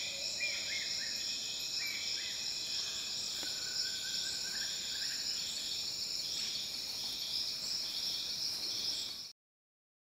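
Night-time rainforest insect chorus: a steady high buzzing of crickets and other insects, with one call pulsing about every 0.7 s and a few short calls in the first seconds. It cuts off suddenly near the end.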